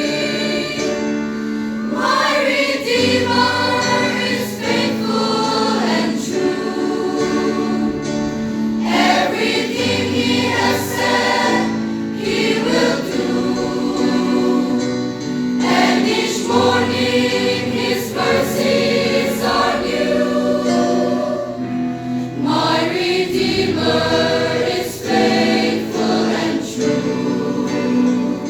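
A choir singing a hymn, with low bass notes returning every six or seven seconds under the voices.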